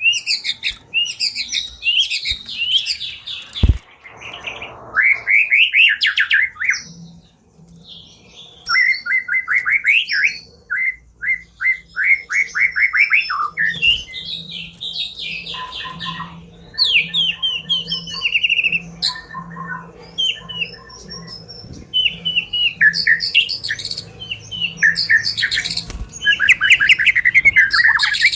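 White-rumped shama (murai batu) singing in loud, rapid phrases of varied chirps and whistles, including runs of about ten quickly repeated sweeping notes, with short pauses between phrases.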